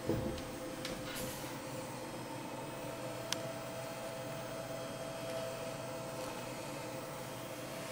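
Steady background hum with faint steady tones, a soft low bump right at the start and a single sharp click about three seconds in.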